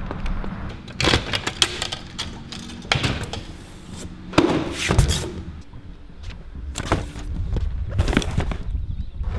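Clicks, knocks and thuds from a metal parcel locker door and cardboard mailing boxes being pulled out and handled, the loudest thud about halfway through, then a box set down in a car trunk near the end.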